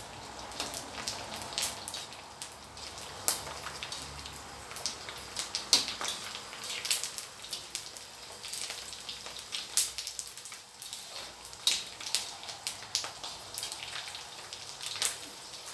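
Small squid deep-frying in hot oil in a wok: a steady sizzle broken by frequent sharp, irregular pops and crackles.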